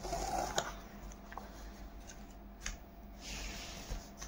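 Hollow plastic toy-truck parts being handled and fitted by hand: soft scratchy rustling with a couple of sharp plastic clicks.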